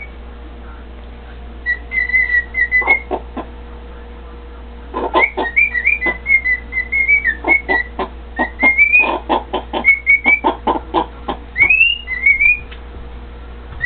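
Cockatiel whistling: short, warbling whistled phrases with little rising slurs, mixed with quick chirps, in spells with a pause of a second or so, busiest in the middle.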